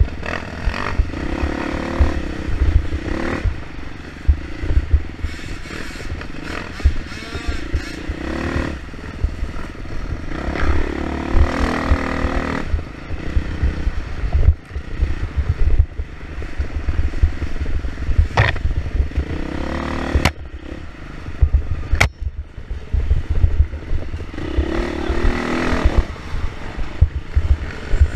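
Dirt bike engine revving up and down as the bike is ridden hard along a rough trail, with a heavy low rumble and clatter from the ground. There are three sharp clicks in the second half.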